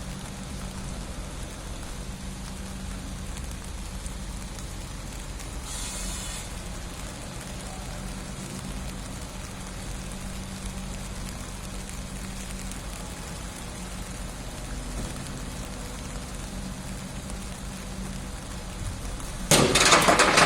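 Engine idling steadily, a low even hum under a hissing noise, on an engine that starts hard and blows white smoke. A sudden loud burst of noise comes near the end.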